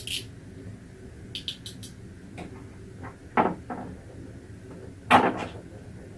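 Scattered short clicks and knocks of a small plastic wind-up toy helicopter racer being handled on a desk, with two louder knocks about three and a half and five seconds in.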